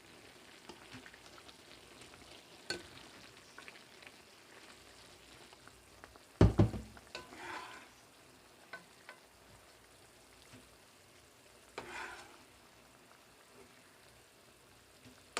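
A utensil stirring and scooping in a pot of cooked vegetables and broth, with scattered light clinks. About six and a half seconds in comes a loud double knock, the loudest sound here.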